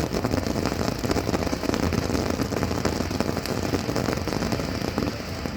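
Firework going off with a dense, continuous crackle and hiss.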